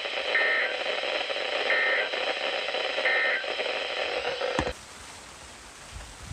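Three short digital data bursts from a NOAA weather radio, each about a third of a second long and about 1.4 s apart, over steady radio hiss: the SAME end-of-message code that closes a weather-radio alert or test. About 4.7 s in the audio cuts off with a click to a softer hiss.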